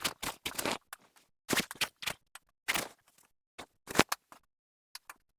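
Short, irregular scrapes and rustles from a fabric pop-up display and its aluminium frame being handled, about seven separate bursts with brief silences between them.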